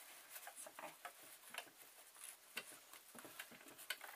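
Faint, irregular clicks and rustling of fabric as a zip and its fabric layers are handled and shifted under the presser foot of a stopped sewing machine.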